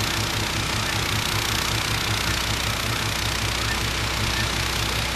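John Deere 1032 snowblower, repowered with a 16 hp PowerMax engine, running steadily under load while it churns and throws snow. The engine note pulses evenly under a steady hiss.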